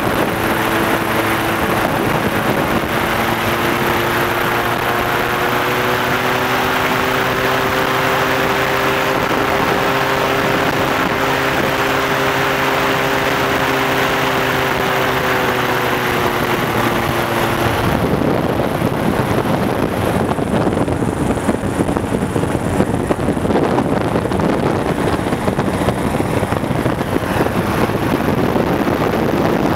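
Powered parachute's engine and propeller running steadily in flight, a level droning hum. About two-thirds of the way through, the sound cuts abruptly to a rougher, noisier rush of engine and wind on the microphone.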